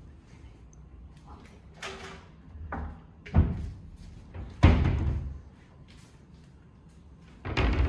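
Doors or cabinet doors being shut: a few thuds, the two loudest about a second apart near the middle, and another near the end.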